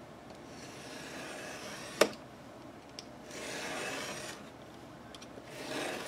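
Paper being cut or slid against paper: three long rasping strokes, with one sharp click about two seconds in.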